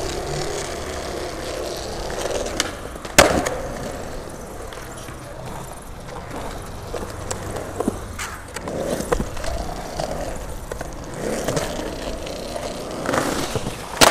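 Skateboard wheels rolling over smooth concrete, the rolling swelling and fading as the board moves through the park, with sharp clacks of the board popping and landing; the loudest crack comes about three seconds in and another right at the end.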